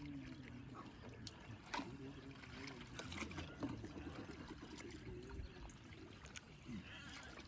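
Faint trickling and sloshing of shallow muddy water stirred by hands feeling along the bottom for fish, with faint voices in the background.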